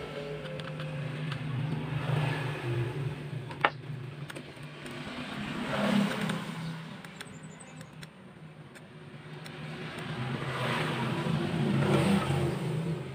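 Motor vehicles going past, their engine noise swelling and fading several times over a steady low hum, with one sharp click about three and a half seconds in.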